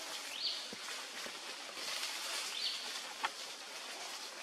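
Forest ambience: a steady high hiss, with two short high chirps that fall in pitch, about two seconds apart, and one sharp click a little later.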